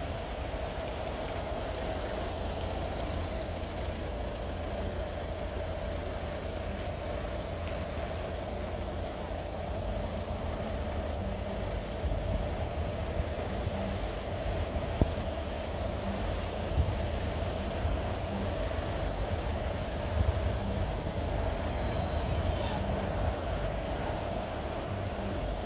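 Level crossing warning alarm sounding steadily while the barriers are down, over a low wind rumble on the microphone, with a few short knocks in the second half.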